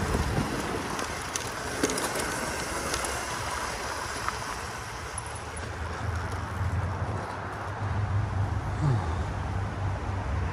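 Small electric dirt bike being ridden over a rough, overgrown trail: a steady rumbling rustle of tyres and brush, with a low hum that grows stronger from about six seconds in.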